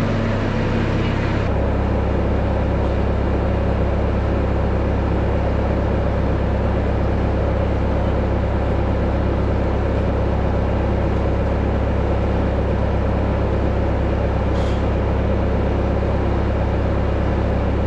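A steady machine drone with a deep, constant hum underneath, unchanging throughout.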